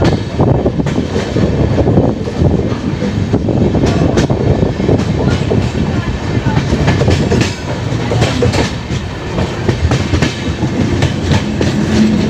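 Udyan Express passenger coach running along the track, heard from on board: a steady loud rumble of wheels on rails with irregular clickety-clack from the rail joints.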